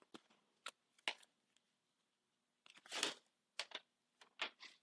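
Paper rustling in a handful of short, faint bursts, the loudest about three seconds in: a sealed bid envelope being opened and the bid sheet handled before it is read out.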